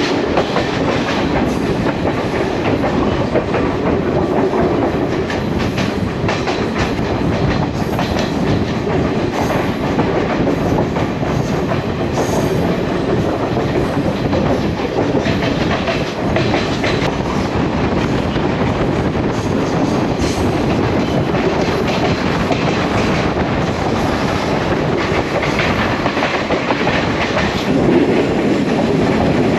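Moving passenger train heard from an open carriage window: steady running noise with the wheels clattering over the rail joints.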